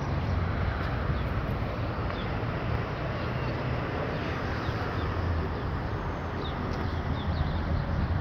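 Steady outdoor ambience: the low rumble of road traffic, with small birds chirping now and then, more often in the second half.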